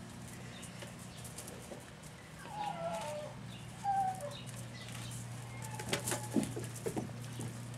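Puppies at play: a few short high-pitched squeaks that fall in pitch, about halfway through, then a cluster of sharp clicks and squeaks near the end, over a steady low hum.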